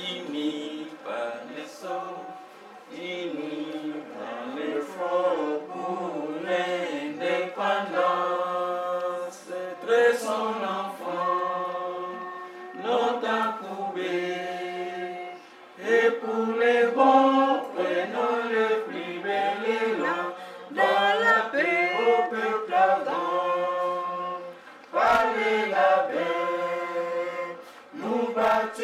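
A small group of people singing a song together, unaccompanied, in long held notes that move from pitch to pitch, with a few short breaths between lines.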